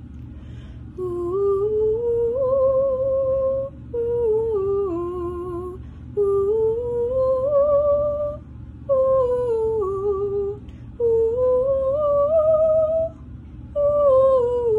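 A woman's voice singing a wordless, unaccompanied vocal scale exercise: three runs that step up and then back down, each run starting higher than the last.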